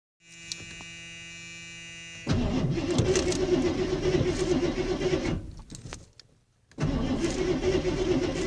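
A steady hum for about two seconds, then a Ford F-150's starter cranking the engine without it catching; the cranking dies away about halfway through, and after a short pause it starts cranking again. The truck is hard starting after sitting for about four weeks.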